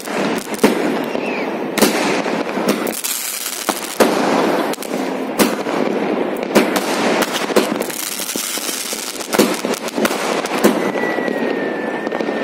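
Ajad Night Queen 30-shot multishot firework cake firing: sharp bangs about once a second over continuous crackling. A brief thin whistle sounds near the end.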